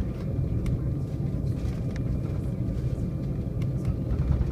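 Steady low rumble heard inside the cabin of an Embraer E190 jet taxiing after landing: its turbofan engines run at idle and the wheels roll over the taxiway. A faint whine sits over the rumble, with a few light clicks.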